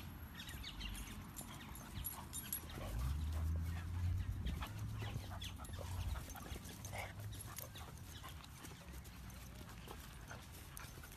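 Dogs play-fighting on grass: scuffling and many quick clicks, with short sounds from the dogs, one brief pitched one about seven seconds in. A low rumble runs from about three to five seconds in.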